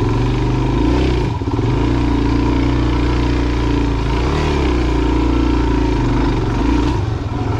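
Suzuki DR-Z400's single-cylinder engine pulling at low revs under load on a steep climb, with brief dips and recoveries in engine speed about a second in, near the middle and near the end.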